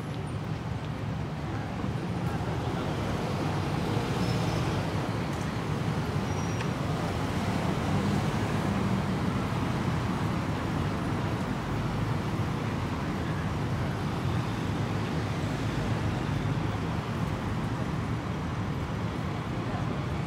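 Steady city traffic: cars and buses passing through a busy junction over a continuous low city rumble.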